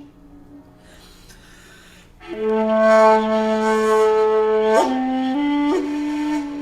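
A 2.4-shaku shakuhachi (long bamboo end-blown flute) by Ichijo Kobayashi being played. Soft breath sounds come first. About two seconds in, a long low note is held for about two and a half seconds. After that the melody steps up through several shorter notes, bending into each one.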